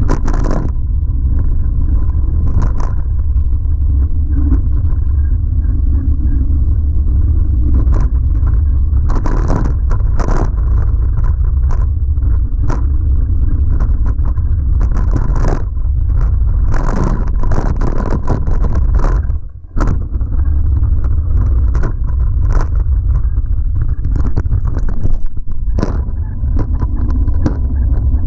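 Heavy, steady rumble of wind and trail vibration on a handlebar-mounted camera, with a 2011 Giant Trance X0 mountain bike's tyres crunching over loose rock and the bike clattering with frequent knocks. There is a brief lull about two-thirds of the way in.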